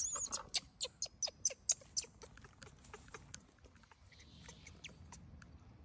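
Baby macaque crying in distress: a rapid run of short, high-pitched squeals, about four or five a second, for the first two seconds, then only a few faint squeaks.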